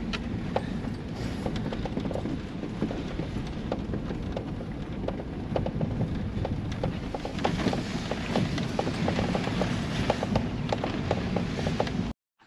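Ford Bronco driving on a rough gravel road in four-wheel drive, heard inside the cab: a steady engine and tyre rumble with many small rattles and ticks. It cuts off suddenly near the end.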